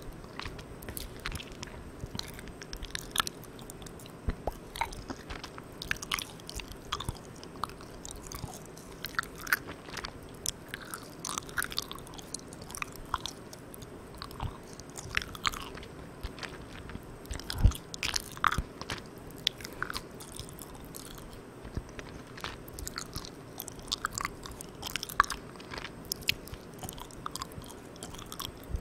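Close-miked mouth chewing of Malang Cow soft, sticky-chewy milk candy: irregular wet smacks and clicks, with one louder smack a little past halfway. Underneath is a steady hiss from the recorder's gain turned all the way up.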